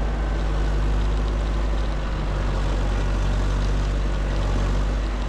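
A vehicle engine running steadily with a deep, even low hum.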